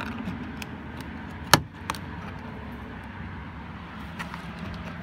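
Flat-blade screwdriver prying at the edge of a plastic power window and lock switch panel in a van door: one sharp click about a second and a half in and a few lighter ticks, over a steady low background hum.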